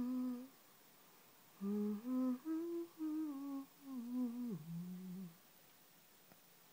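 A woman humming a slow, soothing tune in held notes that step up and down. It pauses briefly about half a second in, resumes, then dips to a low note and stops about five seconds in.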